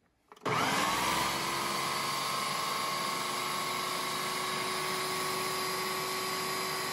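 Ninja food processor motor switching on about half a second in, its whine rising quickly as it spins up and then running at a steady pitch while it purees chunks of steamed squash.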